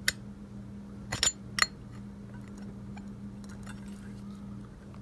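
Sharp metal-on-metal clinks as a screwdriver works a metal part loose from a ceiling fan's motor: one click at the start, a quick cluster about a second in and another just after, then fainter ticks. A steady low hum runs underneath.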